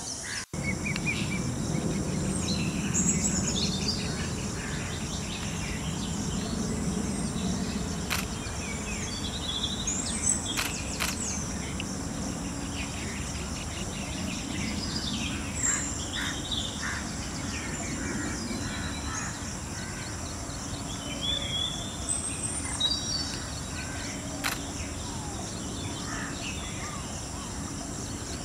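Forest ambience: small birds chirping and whistling on and off over a steady high hum and a low background rumble, with a few faint clicks.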